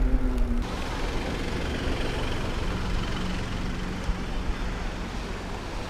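Mountain bike rolling over pavement: steady tyre and road noise, with a low hum that drops away about half a second in.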